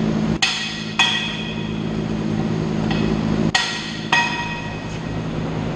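Hammer blows on steel parts of a Schwing P88 concrete pump. Each blow rings sharply, and they come in pairs about three seconds apart over a steady low hum.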